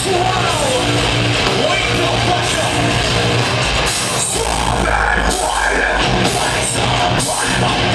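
Metalcore band playing live: distorted electric guitars and bass holding low chords, which break off about four seconds in, with shouted vocals over the drums, heard from within the crowd.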